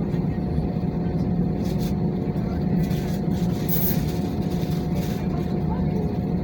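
Steady low cabin rumble of an Airbus A320 on the ground after landing, with a thin steady whine over it and a brief faint hiss about three seconds in.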